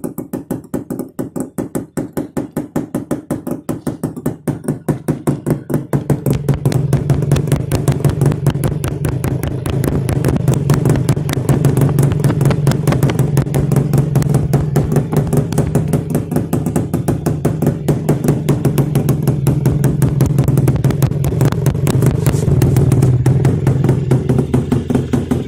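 Yamaha RX100's two-stroke single-cylinder engine idling with the dB killer removed from its silencer, a rapid, even stream of loud exhaust pulses. It gets louder about six seconds in and then holds steady.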